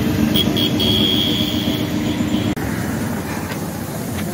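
A motor vehicle's engine running steadily under street noise, with a brief high squeal about a second in. The engine hum breaks off suddenly about halfway through, leaving general street noise and a few light knocks near the end.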